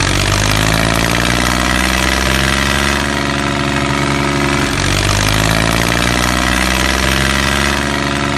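Tractor engine running steadily, with a brief dip and recovery in pitch about halfway through.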